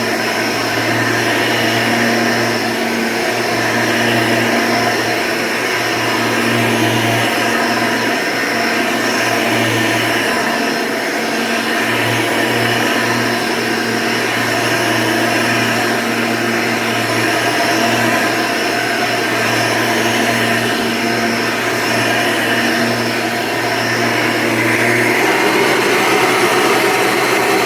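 1996 Hoover Encore Supreme Soft & Light upright vacuum cleaner running steadily with its 20-bladed fan, a loud, even hum and whine.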